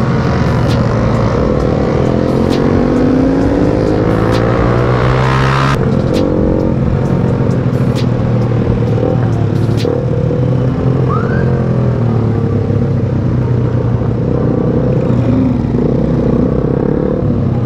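Scooter engine running while riding in traffic, rising in pitch as it speeds up over the first five or six seconds, then changing abruptly and running on more steadily, with scattered sharp clicks.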